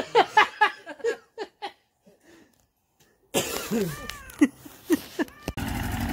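Men's voices and laughter, a short silence, then more voices; near the end, after a cut, a boat motor starts running steadily under them.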